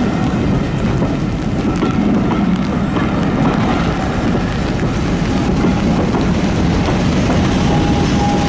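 Diesel train running close by: a loud, steady, heavy rumble with a dense rushing noise over it. A thin, steady whine comes in near the end.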